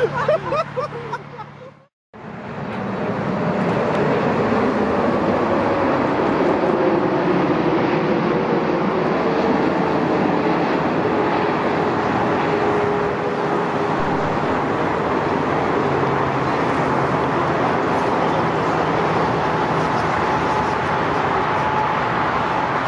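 Jet engines of a Boeing 747-8 landing: a steady, loud jet roar with a faint tone that slowly falls in pitch as the airliner passes and touches down, going on through the landing roll. It follows a sudden cut to silence about two seconds in.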